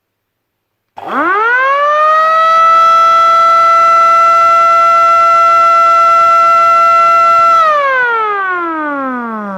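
Civil-defence (air-raid) siren winding up from a low pitch to a steady high wail in about a second, holding one tone for about six seconds, then winding down and falling in pitch near the end.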